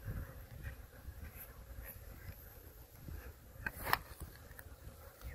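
Honey bees humming faintly from a frame of comb lifted out of the hive, over a low rumble. A few sharp clicks of the wooden frame being handled come about four seconds in.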